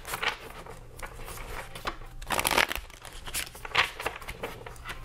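A deck of tarot cards being shuffled by hand: papery rustling and flicking of cards in irregular bursts, the loudest about two and a half seconds in.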